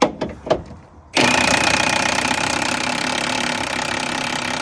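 Power impact wrench hammering on a truck bed bolt. It starts about a second in and runs steadily and loudly. A few short clicks come just before it.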